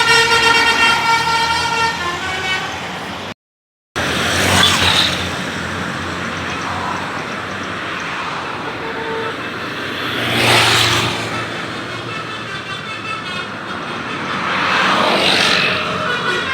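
A Basuri 'telolet' multi-tone bus horn holds a chord of several tones for about two seconds and fades out. After a brief silent cut comes roadside traffic noise, with three vehicles passing by, about six and five seconds apart.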